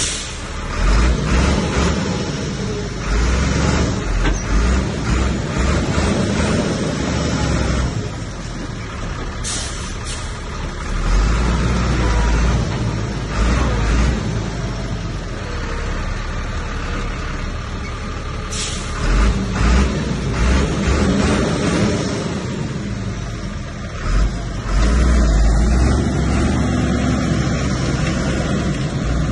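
Heavy diesel earthmoving machinery working: a deep engine rumble that swells under load several times and eases between, with a few short sharp sounds about a third and two-thirds of the way in.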